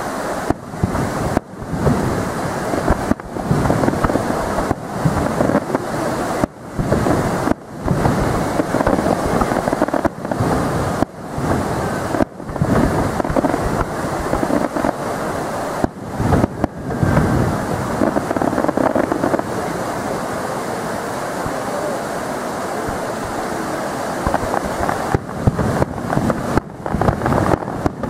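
Fireworks display: repeated booms over a continuous dull rumble, muffled, with no high end. The booms let up for several seconds past the middle and start again near the end.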